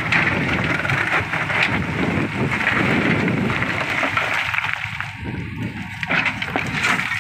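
JCB 3DX backhoe loader working: its diesel engine runs under load as the rear bucket digs through and lifts broken stone, a dense rumbling noise with scattered clicks of rock.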